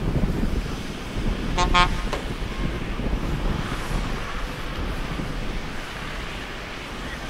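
A vehicle horn gives two quick toots about one and a half seconds in, over the low rumble of arriving vehicles' engines.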